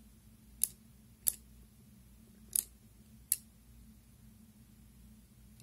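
Soroban (Japanese abacus) beads flicked by a finger, giving four sharp clicks: two close together about a second in, then two more a little later.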